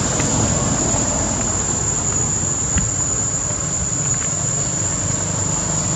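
Steady high-pitched drone of insects, held at one pitch, over a low steady rumble, with a few faint clicks.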